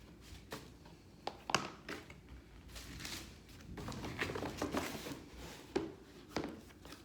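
Hands handling a shoebox, shoes and packaging: a run of sharp taps and knocks, the loudest about one and a half seconds in, with paper-like rustling and crinkling through the middle.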